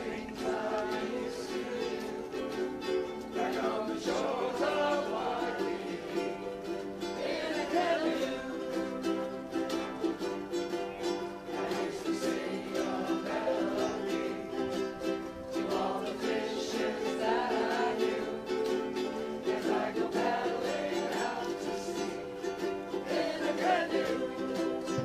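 A group of ukuleles strumming chords together, playing a song with a steady beat.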